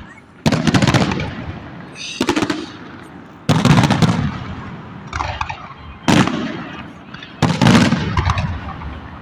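Fireworks salute: about five booming bursts one to two seconds apart, each dying away in a crackling rumble.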